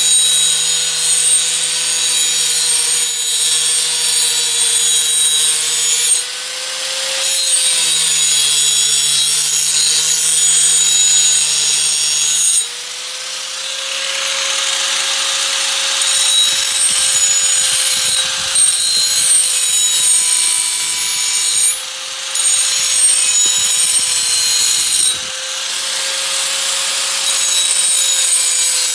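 Handheld power grinder sharpening a steel garden tool: a steady high motor whine under a harsh grinding hiss of wheel on metal. The grinding eases off briefly four times, a little after six, twelve, twenty-one and twenty-five seconds in, while the motor keeps running.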